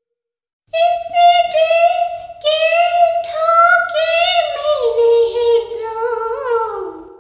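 A woman singing solo and unaccompanied in a high voice. The phrase comes in after a brief pause and falls in pitch near the end.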